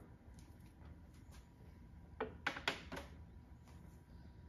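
Light clicks and taps of hard turntable parts being handled as a plate is lifted off the platter and set aside, with a small cluster of sharper clicks about two to three seconds in.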